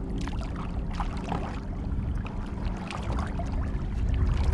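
Water sloshing and splashing against the side of a boat as a hand holds a fish in the water, over a steady low hum from the boat.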